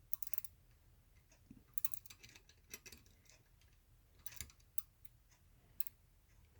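Flex-head ratcheting combination wrench clicking in short runs of small clicks, half a dozen times, as the head is worked.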